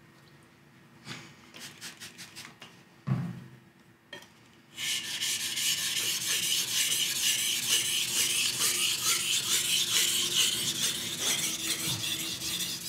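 A few light taps and knocks, then about five seconds in a steady, gritty scraping starts: a steel knife blade being stroked back and forth on a wet whetstone.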